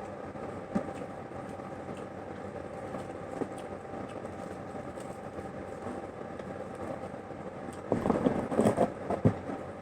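Eating sounds from someone at a meal of fried chicken and rice, over a steady background hum, with a short louder burst of mouth and eating noises about eight seconds in.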